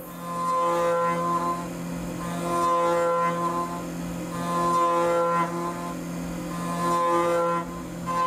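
Tormach 1100MX CNC mill's spindle at 10,000 rpm, driving a Kennametal shell mill with ceramic inserts through Inconel 625. A steady hum runs underneath, and a ringing, multi-toned whine swells up about four times, each time for around a second, as the cutter bites into the metal.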